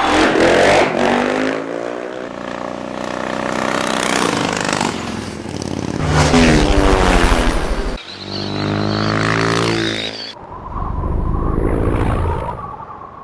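Motocross bike engines revving hard, pitch climbing and dropping with the throttle, with abrupt cuts between takes.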